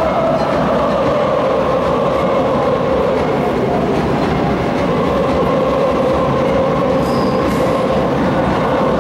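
Large stadium crowd making a steady, loud roar with no single voice standing out.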